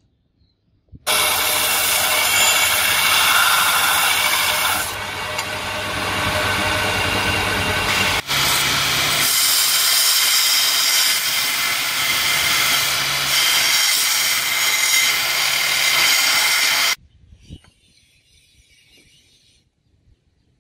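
Belt grinder running with a bearing-steel karambit blade pressed against its abrasive belt, grinding the edge, starting about a second in. The grinding eases for a few seconds, breaks off sharply once near the middle, and stops suddenly about three seconds before the end.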